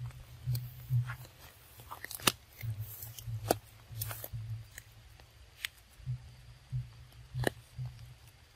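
Footsteps moving through wet grass and undergrowth: dull thuds at an uneven walking pace, with scattered sharp snaps and clicks.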